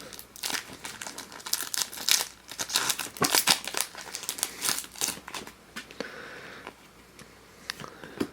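Foil Pokémon trading-card booster pack being torn open and its wrapper crinkled, a dense run of sharp crackles that eases to a softer rustle after about five seconds.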